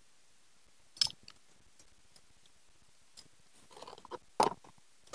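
Scattered light clicks and taps from handling the small metal and plastic parts of an RC excavator toy and setting them down on concrete, with a sharper click about a second in and another near the end.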